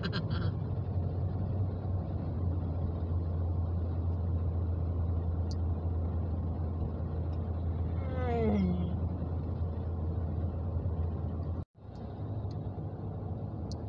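Steady engine and road noise inside a car cruising on a highway, with a low drone underneath. About eight and a half seconds in comes a short vocal sound falling in pitch. Shortly before the end the sound drops out abruptly for a split second.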